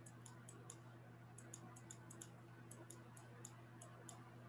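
Faint clicks of a stylus tapping on a pen tablet while letters are handwritten, coming in small irregular clusters, over a low steady electrical hum.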